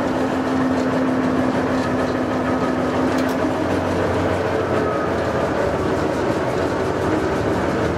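Ruston & Hornsby diesel shunter's engine running steadily, heard from inside its cab while the driver works a control lever. A low hum holds until about halfway through, then the engine note shifts higher.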